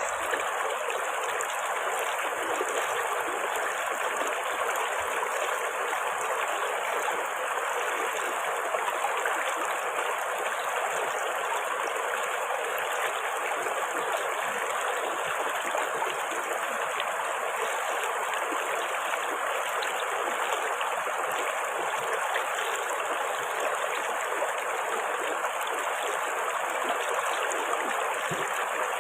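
River water flowing over rocks: a steady, unbroken rushing and babbling of a stream.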